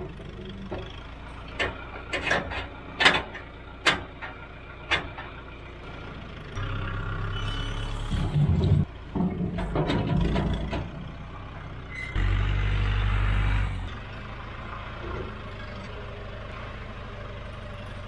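John Deere tractor engine running while its front-end loader bucket dumps log rounds and slab offcuts, the wood knocking and thudding as it tumbles out. A run of sharp knocks comes in the first few seconds, and the engine note rises twice for a couple of seconds as the loader hydraulics work.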